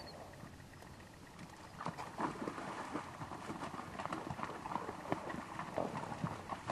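Hooves of wild mustangs stepping and shuffling on dry, stony ground. An irregular run of thuds and clicks starts about two seconds in and keeps on.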